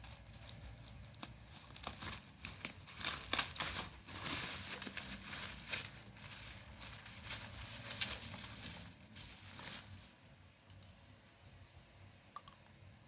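Packaging being crinkled and torn open by hand, in irregular rustling and crackling bursts that die down about ten seconds in.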